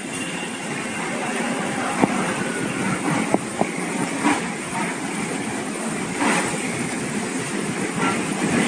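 Kittens hissing in two short bursts, about four and six seconds in, over a steady rushing background noise, with a few sharp clicks earlier on.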